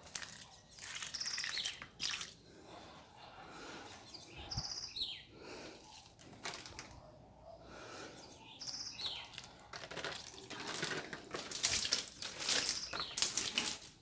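Birds chirping now and then in quick falling calls, with splashes of water poured from a mug onto potted plants, more frequent near the end.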